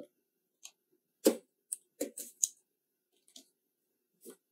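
Box cutter working at a cardboard-and-plastic retail box: a few faint, scattered short clicks and scrapes, the loudest a little over a second in.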